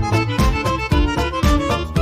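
Background music: a lively fiddle tune over a steady beat.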